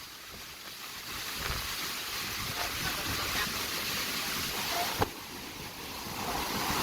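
Sea surf from large waves washing in, a steady rushing that swells about a second in, eases briefly with a short click about five seconds in, and builds again near the end.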